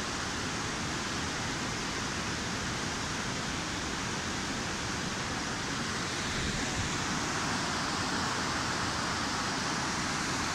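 Steady rushing of a fast mountain river running over rapids, a continuous even roar of water.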